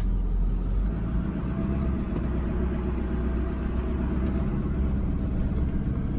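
Pickup truck engine and tyre noise heard from inside the cab while driving slowly: a steady low rumble.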